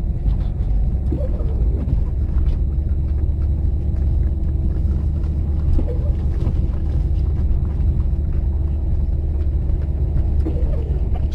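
Toyota Corolla 4WD driving through snow, a steady low rumble of engine and tyres heard from inside the car.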